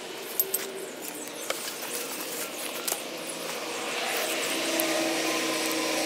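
Clinks and knocks of climbing sticks and metal hardware hanging from a hunting saddle, with rustling of gear and rope handling, as the climber walks up to a tree and takes hold of his tether rope. A steady hum joins in the second half.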